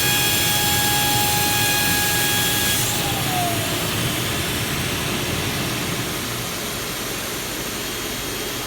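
A machine's motor whining with a steady high tone over a rushing noise. About three seconds in, the whine falls in pitch as the motor winds down, while the rushing noise carries on.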